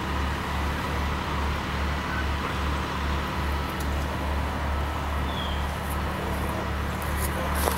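A large engine running steadily, its low hum throbbing evenly about three times a second.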